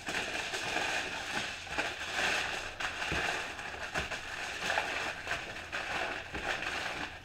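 Aluminium foil crinkling and crackling as a sheet is folded and rolled by hand into a long strip, with sharper crackles now and then.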